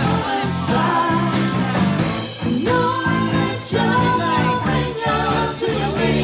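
Live band playing a rock song: a woman singing lead with men's harmony vocals over electric guitar, electric bass and a drum kit with a steady beat.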